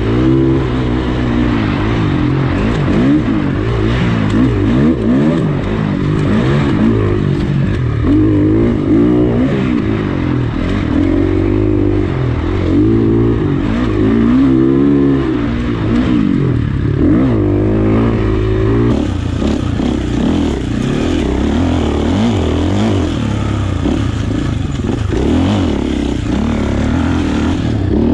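Four-stroke Husqvarna dirt bike engine heard from the rider's position, its pitch rising and falling again and again as the throttle is worked and gears change on rough trail, with some clatter from the bike.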